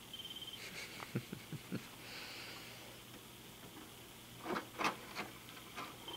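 A cat pawing at a computer's open CD drive tray: soft plastic knocks and clicks, a few small ones about a second in and a louder cluster of clicks near the end.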